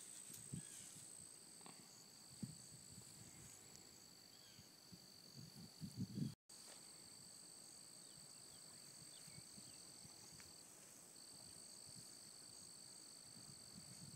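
Faint, steady high-pitched insect trilling. Soft low knocks and bumps build to a short flurry about six seconds in, and the sound cuts out for a moment just after.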